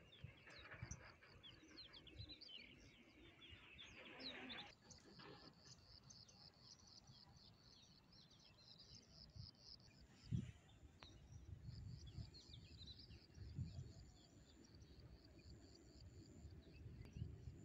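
Faint chirping of many small birds, short repeated calls, with a hiss that stops about five seconds in. Scattered low thumps, the loudest about ten seconds in.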